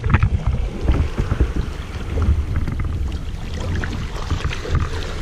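Water splashing and sloshing along a boat's hull around a sailfish held alongside to revive it, with a steady low rumble underneath.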